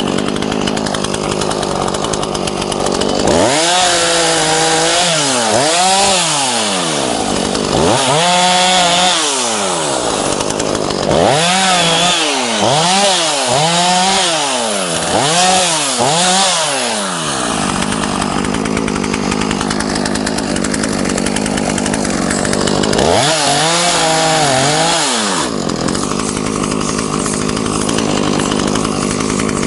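ZimAni 450 petrol chainsaw cutting branches off a felled spruce trunk: the engine idles, then revs up and drops back again and again, about a dozen quick revs, from a few seconds in until past the middle and once more briefly near the end.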